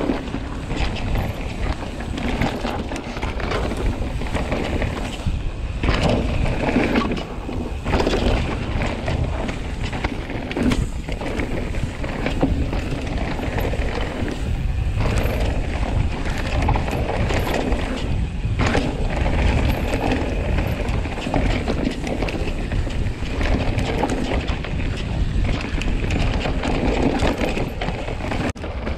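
Commencal Meta mountain bike ridden down a dry dirt trail: steady rolling tyre noise with chain and frame rattling over the rough ground, and wind on the camera microphone. Sharp knocks from bumps and landings come several times.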